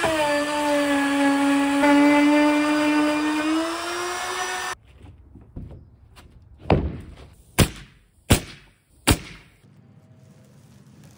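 Handheld wood router running under load as it cuts through OSB floor sheathing: a steady high whine whose pitch sags slightly and then rises before it stops abruptly about four and a half seconds in. Then four sharp wooden knocks over the next few seconds.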